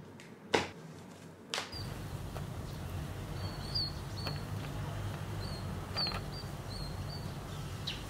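Two sharp clicks, then a steady low outdoor rumble with a small bird chirping short, high notes several times.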